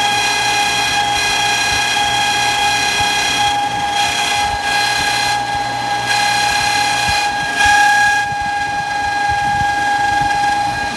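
Swimming-pool pump with a Centurion motor running with a loud, steady high-pitched squeal over the rush of the pump, briefly louder about eight seconds in. The squeal does not go away once the pump has filled with water.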